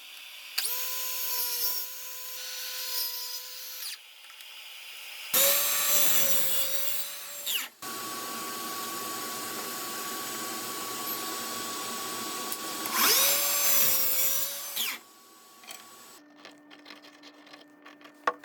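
Electric drill running in several bursts, its motor whine steady between loud runs where the pitch sags and recovers under load. It stops about fifteen seconds in, leaving faint taps of handling.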